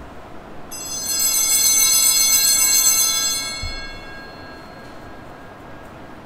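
Altar bells ringing: a bright cluster of high tones that swells in, holds for about three seconds and fades away.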